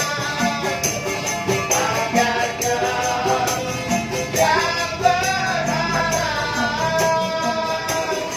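A street busker sings a melody in long, held notes over a steady percussion beat of about two strokes a second.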